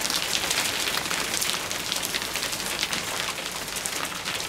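Hailstones pelting down, a steady dense hiss made up of many small, sharp hits.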